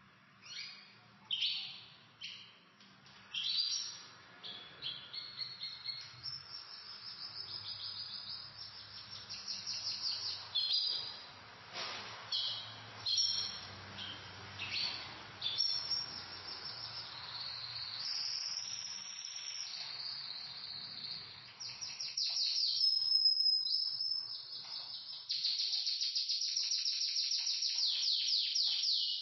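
Pet canaries singing: a run of varied chirps and short warbled phrases that builds into long, rapid rolling trills near the end.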